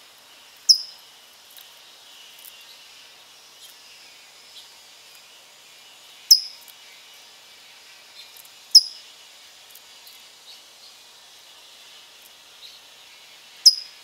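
Four sharp, high chip notes from a small songbird, each sliding slightly downward, spaced a few seconds apart, over a faint steady high hiss and scattered faint chirps of other birds.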